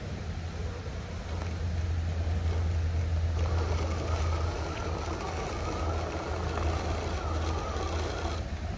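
Scale RC crawler truck's electric motor and drivetrain whining as it climbs over rock, starting about three and a half seconds in and easing off near the end, over a steady low rumble.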